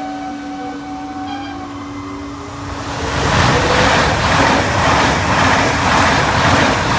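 Train passing close at speed: a loud, rushing noise that pulses evenly, starting about three seconds in. Before it come steady tones.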